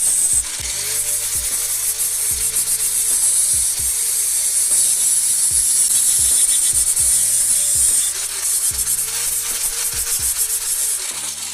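Steady abrasive rubbing on a bicycle part, with light clicks scattered through it. Quiet background music underneath.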